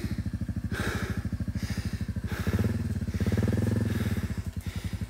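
Small single-cylinder motorcycle engine idling with an even, rapid putter. The engine note swells and grows louder for about a second and a half from about two and a half seconds in, then settles back to idle.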